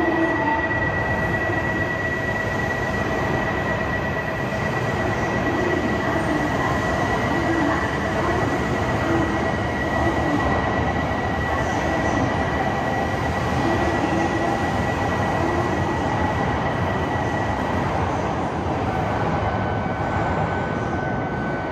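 Shinkansen bullet train moving along the platform in Ueno's underground station, a steady loud rumble of wheels and running gear. Over it sits a sustained high whine that steps down to a lower pitch near the end.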